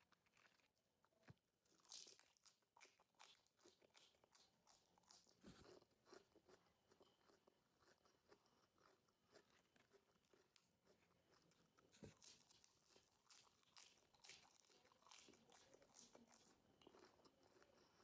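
Faint, close crunching of crisp raw lettuce leaves being bitten and chewed: many sharp crackles in quick succession, with a few louder crunches.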